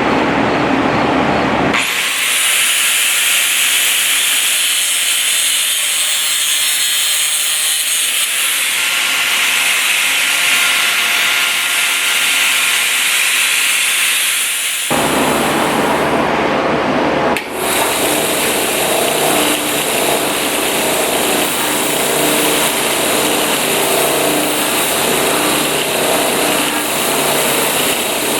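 Power tool working stainless steel. A high, steady grinding hiss runs through the first half and changes abruptly to a rougher, lower noise about halfway through.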